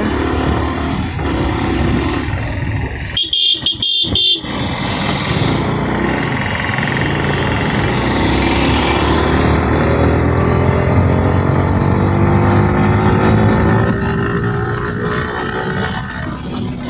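Yamaha R15M's 155 cc single-cylinder engine pulling under acceleration, its note climbing steadily, with wind rushing over the microphone. About three seconds in, a horn gives a quick run of four or five short beeps.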